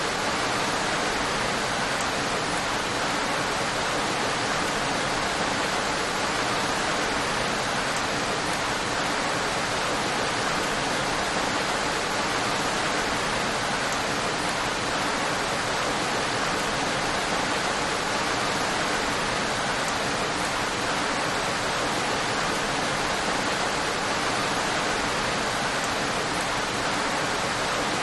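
Steady, even rain with a dense hiss and no distinct drops or thunder.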